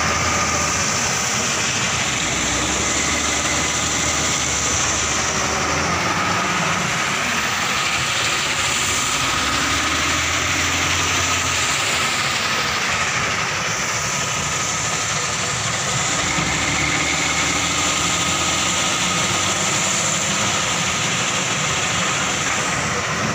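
Steady din of heavy machinery: diesel dump-truck and wheel-loader engines running together with a stone crusher and its conveyors, a continuous rumble with a faint steady whine over it.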